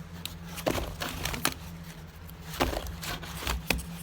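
Rolls of half-dollar coins knocking against one another and the cardboard box as they are handled and flipped, about six separate short clacks over a steady low hum.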